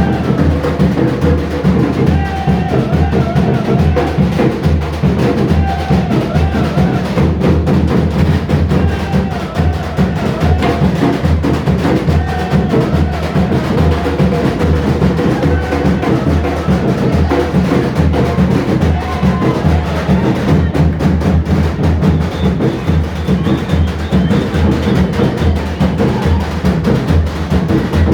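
Batucada: a samba drum ensemble playing a steady, driving rhythm, with deep bass-drum pulses under dense snare and hand-percussion strokes.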